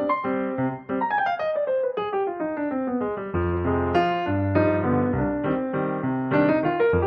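Background piano music: quick runs of notes, with a fast descending run about a second in.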